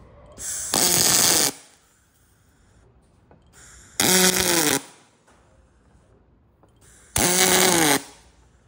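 MIG welding arc on aluminium tube: three short tack welds about three seconds apart, each a loud buzz of under a second whose pitch drops as the arc stops.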